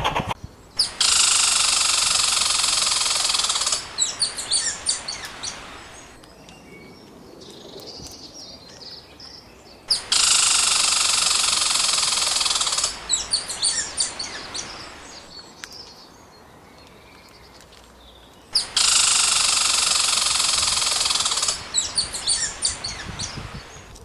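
Bird-like chirping, looped three times: each time a dense burst of twittering about three seconds long, then a run of separate short chirps that fade into a quieter gap.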